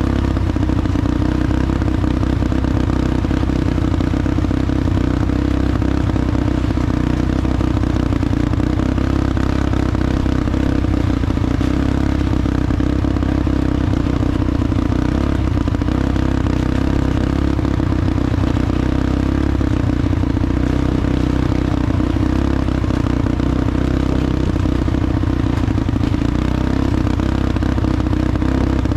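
A vehicle engine running steadily at an even pitch, with clattering.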